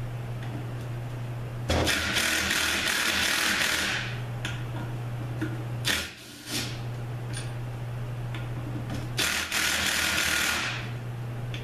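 A power tool running in two bursts, one of about two seconds and a shorter one of just over a second near the end, backing bolts out of a Subaru 4AT automatic transmission case. A steady low hum runs underneath, with a few light clicks between the bursts.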